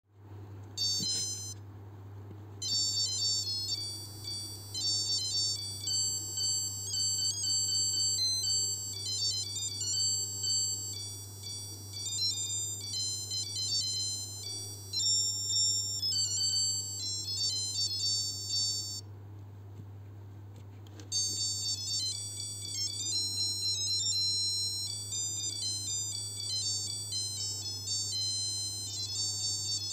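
Casio H-104 melody alarm watch (module 82) playing its electronic melody through its tiny piezo buzzer: a quick tune of high, thin beeping notes that stops about 19 seconds in and starts again about two seconds later. A steady low hum lies underneath.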